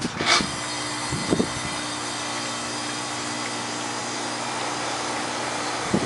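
Steady mechanical hum with several held tones, like a motor running, with a brief rustle just after the start.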